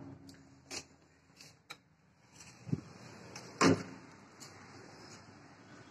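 A few sharp clicks and knocks from a window frame and curtain being handled, the loudest about three and a half seconds in, with a faint steady hiss of outdoor background noise coming in from about two seconds in.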